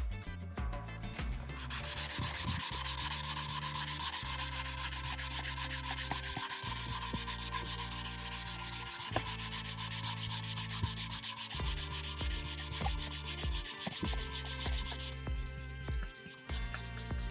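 Sanding the repaired plastic of a car bumper: a dense, scratchy rubbing that thins out about fifteen seconds in.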